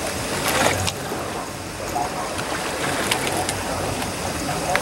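Sea water sloshing and splashing against the hull of a fishing boat on open water, as a steady wash of noise. A louder splash comes about half a second in, and a few sharp knocks follow around three seconds.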